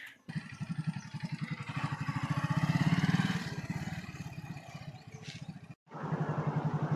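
Motorcycle engine running, its fast exhaust pulses swelling louder about three seconds in and easing off again. The sound breaks off sharply near the end and picks up again.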